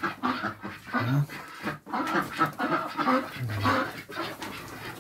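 Domestic ducks giving short, low calls, repeated about once a second, amid shuffling and rustling.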